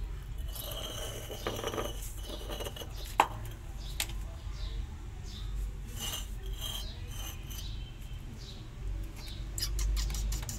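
Close rasping and rubbing against stone and plaster, with scattered clicks and one sharp tap about three seconds in.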